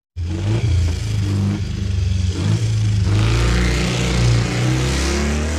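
Motorcycle engine running and being revved.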